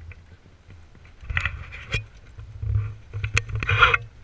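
Wind rumbling unevenly on the microphone of a deck-mounted camera aboard a sailboat under way, with a few sharp knocks and short bursts of hiss.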